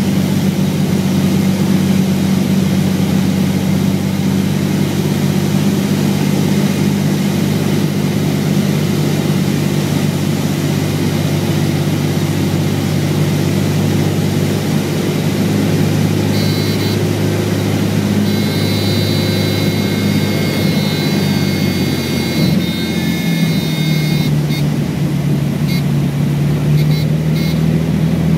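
Cessna 206 floatplane's six-cylinder piston engine and propeller droning steadily, heard from inside the cabin during a water landing. About three-quarters of the way through, the engine note steps down lower as power comes off.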